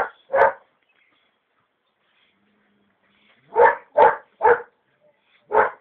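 Belgian Malinois puppy barking: two sharp barks at the start, a pause of about three seconds, then a quick run of three barks and one more near the end.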